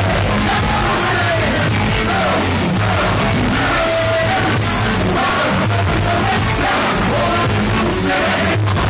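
Loud live band music with singing and yelling voices over it, steady throughout.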